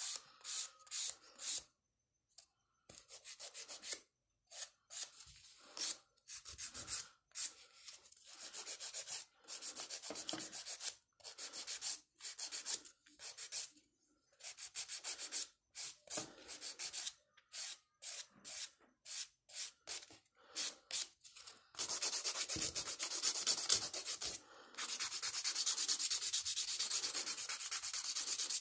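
Hand-held nail file rasping across acrylic or gel nail extensions in short separate back-and-forth strokes, turning into fast, almost continuous filing in the last several seconds.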